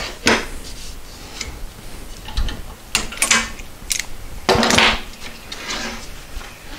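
A string of clicks, knocks and short scrapes from tools and wood being handled on a workbench: a cordless drill set down, a locking face clamp released and lifted off, and a poplar door frame shifted and picked up.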